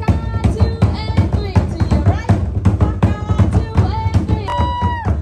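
Music with rapid, steady drumming and voices singing over it, ending on one long held note that cuts off near the end.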